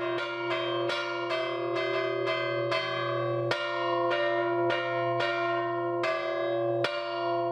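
Church bells rung in a repique, the bell-ringer's fast hand-struck peal that is rung for mass. The bells are struck in an even rhythm of about two and a half strokes a second, each stroke ringing on into the next. The strokes stop about a second before the end, and the ringing dies away.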